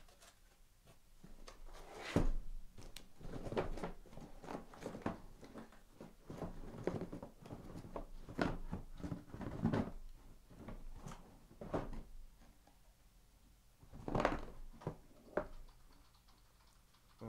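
Cardboard case and shrink-wrapped trading-card boxes being handled and slid out: irregular rustling and scraping with several dull thuds, the loudest about two seconds in and again near the end.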